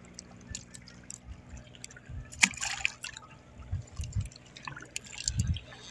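Water dripping and splashing at the side of a small outrigger boat as a fishing line is hauled in by hand, with a brighter splash about halfway through and a few low thumps.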